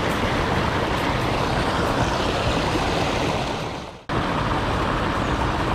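Steady rush of turbulent water churning into the river. It dies away just before four seconds in and starts again abruptly.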